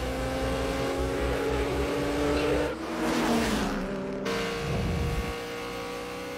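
A supercharged Dodge Charger and a Toyota Supra racing side by side at full throttle, their engine notes held high and climbing slowly in pitch. About three seconds in, a car rushes past with its pitch dropping, then one engine note carries on steadily.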